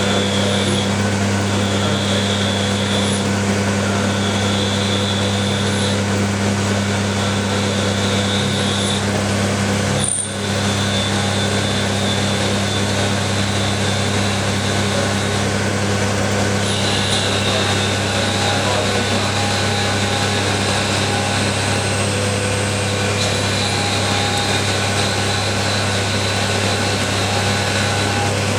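Small CNC lathe running its machining program: a steady motor hum with a high whine that starts and stops in stretches as the drives move the tool, and a brief drop in the sound about ten seconds in.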